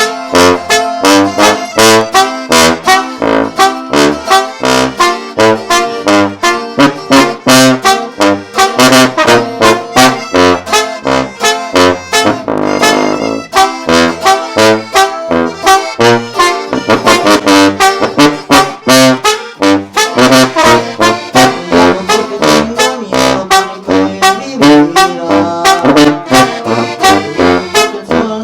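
Regional Mexican band playing live, an instrumental passage with no singing: a bass line pulsing on every beat under a steady rhythm and a melody on top.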